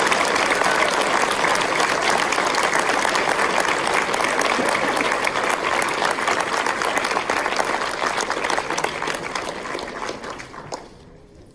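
Audience applauding, a dense steady clapping that dies away sharply near the end.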